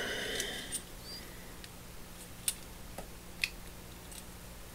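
Gloved hands gripping and pulling at the stuck wooden handle of a Yankee ratchet screwdriver: a short rasping rub at the start, then a few faint, scattered clicks as the handle is worked.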